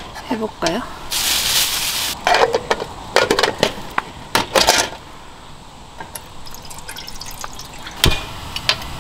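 Water poured from a plastic bottle into an aluminium mess tin in a few short pours, then a single sharp metal clack of the tin's lid going on about eight seconds in.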